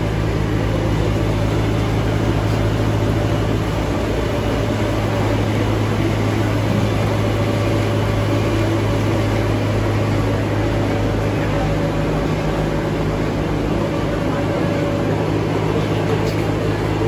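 Rotary drum bagasse dryer and its feed conveyor running: a steady mechanical drone with a strong low hum under a noisy rumble of the turning drum and machinery.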